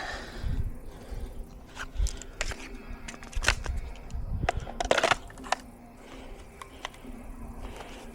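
A few scattered light clicks and knocks, the strongest about three and a half and five seconds in, over a faint steady hum.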